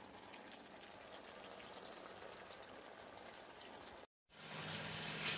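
Cubed marinated tofu with peas, onion and garlic sizzling and bubbling gently in oil in a frying pan, a faint, even crackle. It drops out briefly about four seconds in and comes back louder.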